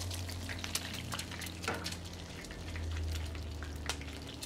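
An egg frying in hot oil in a frying pan, sizzling with scattered sharp crackles and pops of spattering oil, over a steady low hum.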